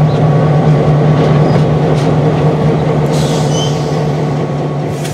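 Diesel locomotive rolling slowly past close by, its engine running with a steady low drone over the rumble of the wheels on the rails, fading gradually as it moves away. A brief high hiss with a faint squeal about three seconds in.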